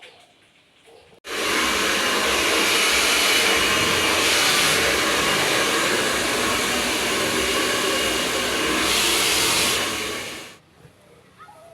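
A loud electric appliance running steadily with a rushing, air-like noise and a faint high whine. It is switched on abruptly about a second in and cuts off near the end.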